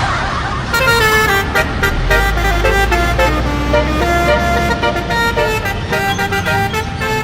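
Bus 'telolet' horn playing a tune, a string of sustained tones stepping up and down in pitch, starting about a second in.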